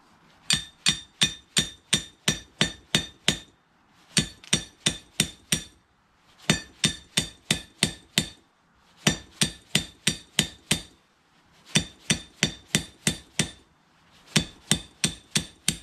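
Hammer blows on the seized steel auger shaft and gear of a Yardman MTD snowblower auger gearbox, knocking the gear down the shaft. The blows come in six quick runs of about four a second, each blow ringing metallically, with short pauses between runs.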